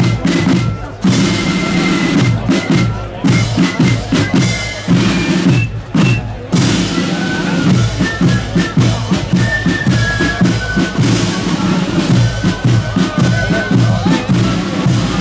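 Marching flute band playing a tune: a high melody line over a steady beat of bass drum and side drums.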